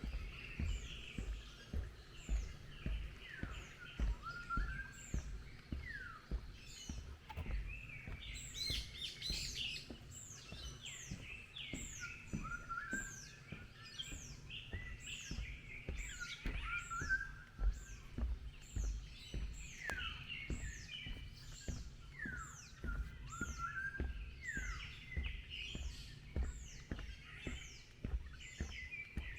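Several wild birds chirping and singing together, many short, quickly falling chirps repeating and overlapping throughout, over a low steady thudding.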